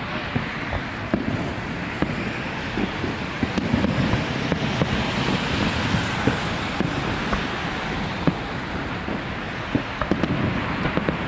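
Fireworks going off: a continuous crackling wash dotted with many short, sharp pops.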